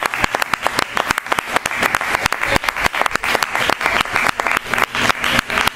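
Spectators clapping: many sharp claps in quick succession.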